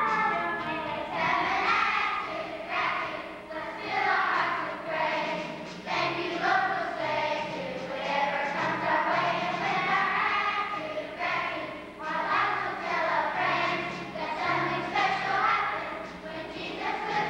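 Children's choir singing a song, with instrumental accompaniment carrying a bass line of held notes underneath.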